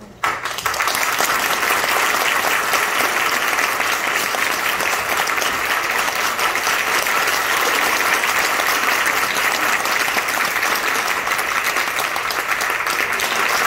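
Theatre audience applauding steadily. The clapping starts suddenly just after the start.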